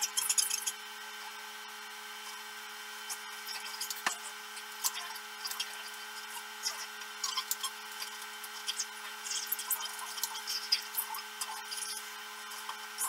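Braided cable sleeving handled and worked over a wire by hand, giving irregular small rustles and crackling clicks, with one sharper click about four seconds in. A steady low hum runs underneath.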